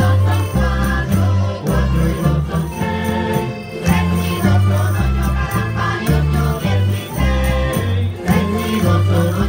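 A Canarian folk group's women singing together to live string accompaniment, with a bass line stepping from note to note and light shaken percussion keeping the beat.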